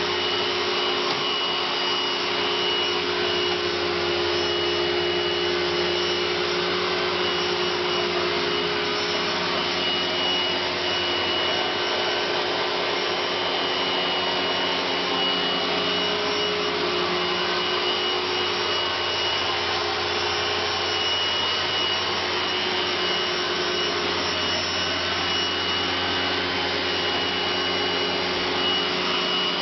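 Philips AquaTrio wet floor cleaner running steadily over the floor, an even motor whine that does not change or stop.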